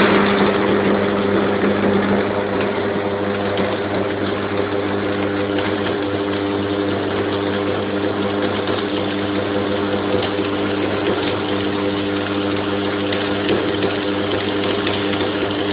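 Automatic arc welding in progress: a steady electrical hum from the welding machine under a continuous crackling arc.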